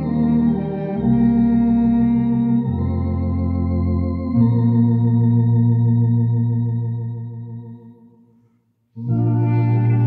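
A Tokay electronic organ and a clarinet playing a slow hymn in held chords, the organ's bass notes changing underneath. The music fades out a little over eight seconds in, and after a brief silence both instruments come in together again.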